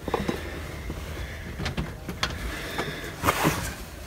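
Phone handling noise: clothing rubbing against the microphone, a few sharp clicks, and a louder rustling scrape about three seconds in.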